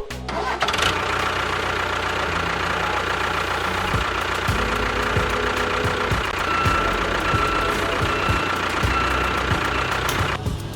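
Small motor of a homemade mini tractor-bulldozer running steadily, starting just after the beginning and cutting off abruptly near the end.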